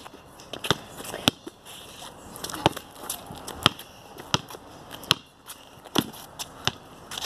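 A ball being bounced: a string of sharp knocks, roughly one to two a second, as a player dribbles before a shot.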